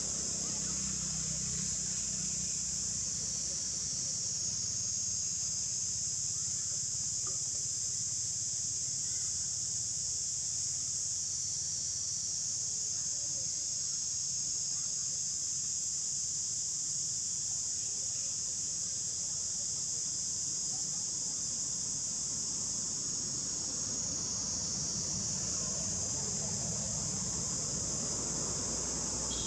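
A dense insect chorus droning steadily at a high pitch, with a faint low rumble beneath.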